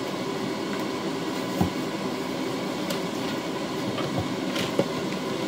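A steady mechanical rumble with a hiss, with a few faint light knocks.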